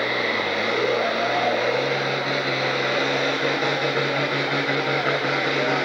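Farm-stock pulling tractor's diesel engine running hard under full load as it pulls the weight-transfer sled. Its pitch sags briefly near the start, then holds steady.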